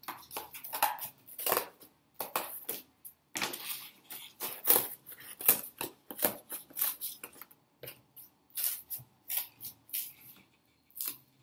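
Scissors cutting through thick corrugated box cardboard: a run of short, scraping snips, about two to three a second, with brief pauses. The cardboard is hard to cut.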